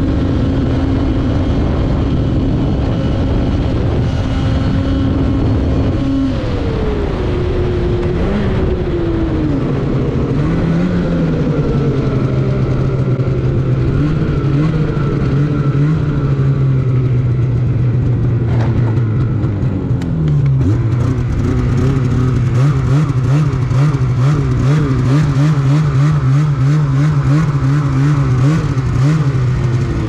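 Snowmobile engine running at high revs, around 8000 rpm. About six seconds in the throttle is eased and the pitch falls, and the sled carries on at lower revs. In the last third the engine note wobbles quickly up and down, and it drops again near the end as the sled slows.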